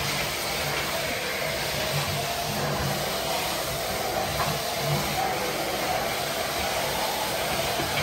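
Miele C1 Classic canister vacuum cleaner running steadily, a constant rush of air as its floor head is pushed back and forth over the hard floor.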